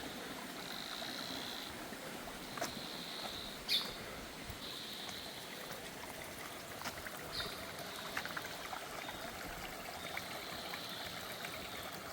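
Stream water running and trickling over rocks, a steady rush. A high buzzing call comes in bursts of one to two seconds several times, and a few sharp clicks sound, the loudest about four seconds in.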